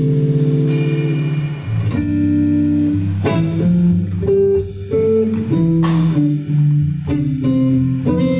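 Live electric guitar and bass guitar playing a slow melodic instrumental passage together, held notes moving over a bass line, with no drums.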